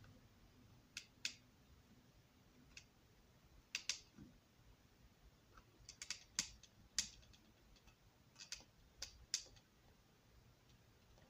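Irregular light clicks and taps, about a dozen, as hands handle and turn a model railroad engine house wall.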